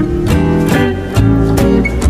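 Background music led by a strummed acoustic guitar, with chords struck in a regular rhythm.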